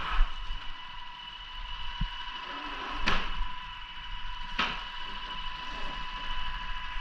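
Paint sprayer running with a steady whine, broken by two short, sharp bursts about three seconds and four and a half seconds in.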